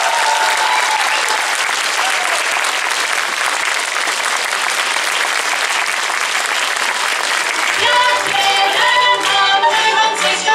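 Audience applauding as a fiddle tune ends, its last held note fading in the first second. About eight seconds in, the folk band starts the next piece over the last of the clapping.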